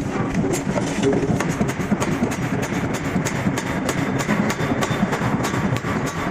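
Heavy metalworking machinery in a steel forging and machining shop, running with a steady noisy rumble and rapid, irregular metallic clacking several times a second.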